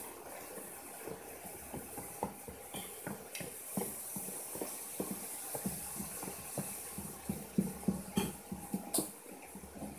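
Cooking utensils stirring: a spoon tapping and scraping in a bowl and a spatula clinking in a frying pan, in quick irregular clicks that get louder near the end, over a steady sizzle from the frying carrots.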